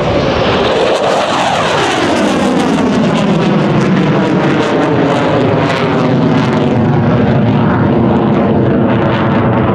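McDonnell Douglas F-15C Eagle's twin Pratt & Whitney F100 turbofans in afterburner as the jet pulls up from a low pass into a vertical climb: a loud jet roar with crackle, its pitch sweeping down in the first couple of seconds as the jet climbs away.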